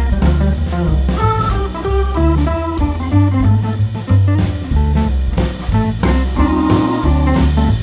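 Background music: an upbeat jazz-style instrumental with drum kit, bass and guitar keeping a steady beat.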